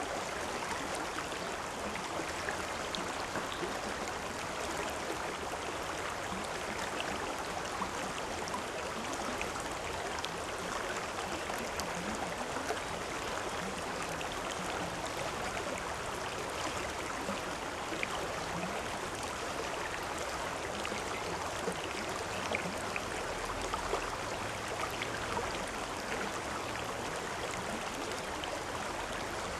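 Stream water running over rocks: a steady babbling rush with small splashes and gurgles throughout.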